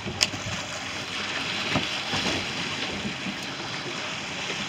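Wind and choppy water around a small boat at sea, an even rushing noise, with a sharp click about a quarter second in and a fainter one near the middle.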